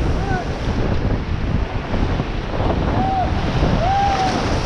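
Whitewater rapids rushing loudly and steadily, with wind buffeting the microphone, as a raft goes through the rapid. A few short shouts from the rafters rise over the water noise.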